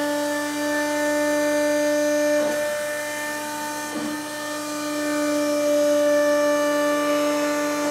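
CNC rotary engraving machine's spindle whining steadily as its cutter engraves a plastic label plate, with brief breaks about two and a half and four seconds in as the head changes direction.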